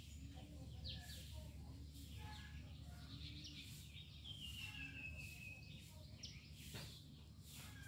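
Wild birds chirping and calling, with a long falling trill about four seconds in, over a steady low rumble.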